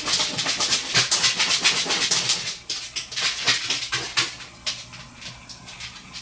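A pet scratching with its claws in rapid, rasping strokes, thick for the first four seconds or so and then thinning out.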